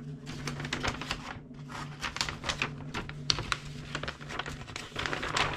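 A large folded paper map being unfolded: the paper rustles and crackles in quick, irregular clicks. A low steady hum runs underneath.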